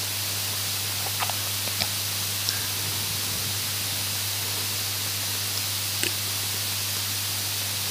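Steady hiss from the recording's noise floor with a low electrical hum, broken by a few faint clicks, in the pause between recited verses.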